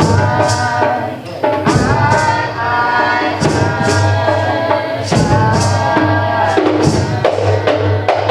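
Music with singing over a steady percussion beat, held notes and regular hits about twice a second.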